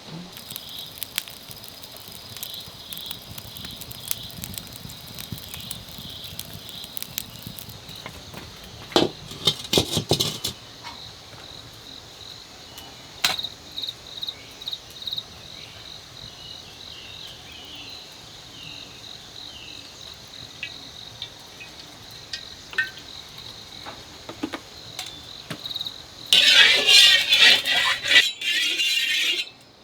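Insects chirping in a steady, pulsing high-pitched trill. There is a cluster of clicks about nine seconds in, and a loud noisy burst lasting about three seconds near the end.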